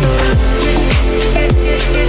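Background music: an electronic beat with deep kick drums that drop in pitch, held synth notes and crisp high percussion.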